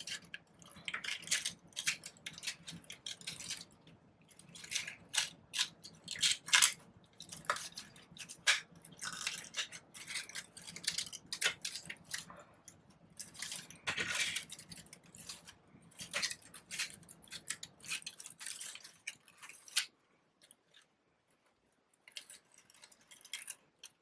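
Paper flowers being handled and pushed into a bouquet, crinkling and rustling in irregular crisp crackles that stop a few seconds before the end.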